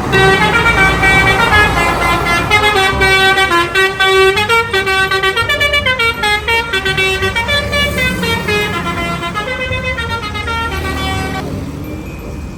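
Multi-tone 'telolet' bus horn playing a tune of short held notes that step up and down, over a low engine rumble. The tune stops about a second before the end, leaving the rumble.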